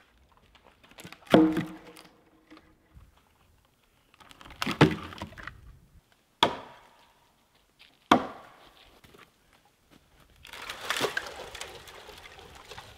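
Axe chopping into a standing tree: four sharp wooden chops, spaced one and a half to three and a half seconds apart. Then a longer crackling, splintering rush lasts about two seconds near the end.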